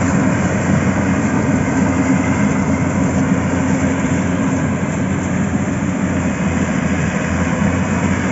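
Steady, unbroken engine and vehicle noise, strongest in the low range.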